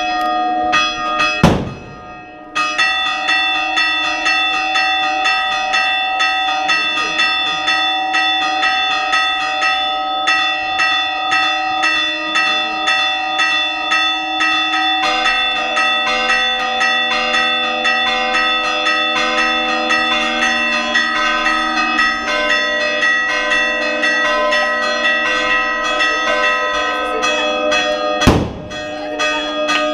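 Several church bells rung rapidly and continuously in a festive peal, the clanging pitches shifting partway through. Two loud sharp bangs stand out, one about a second and a half in and one near the end.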